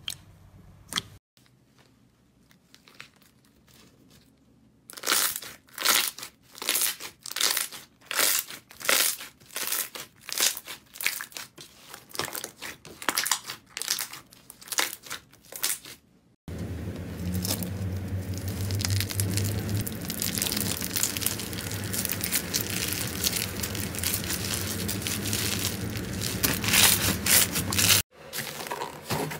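Slime being squeezed, stretched and poked by hand, giving crinkly, crackling squishes. After a quiet start the strokes come separately, about two a second, then from about halfway they give way to a denser, continuous crackle with a low hum beneath.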